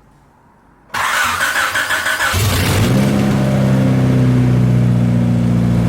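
Car engine being cranked by its starter, catching after about a second and a half, its revs rising briefly and then settling into a steady idle.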